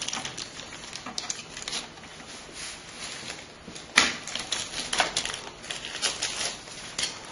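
Irregular small clicks, taps and rustling from hands handling computer cables and plastic parts, with one sharper click about four seconds in.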